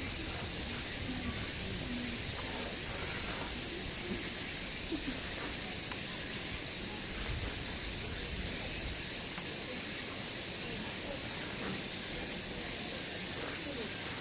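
A chorus of cicadas buzzing steadily, a continuous high-pitched drone that doesn't let up.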